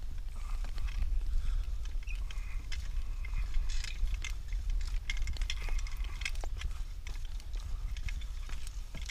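Wind rumbling on the microphone, with scattered light clicks and knocks.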